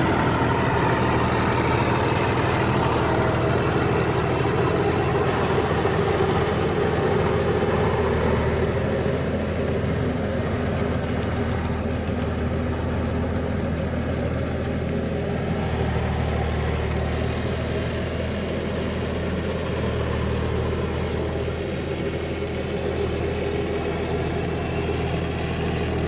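John Deere 5305 tractor's three-cylinder diesel engine running steadily under load as it drives a rotavator through wet paddy-field mud, growing slightly fainter as the tractor moves away.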